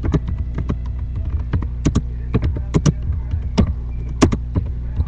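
Computer keyboard keys clicking in short, irregular runs as someone types, over a steady low electrical hum.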